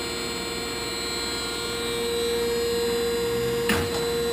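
Okamoto PSG-125 surface grinder running: a steady machine hum with a high whine from its hydraulic pump and motors, a little louder about two seconds in. A single sharp click near the end.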